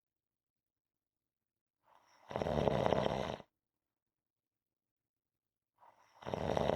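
A person snoring rhythmically: two snores about four seconds apart, each starting faintly and then swelling into a loud snore lasting about a second, with silence between them.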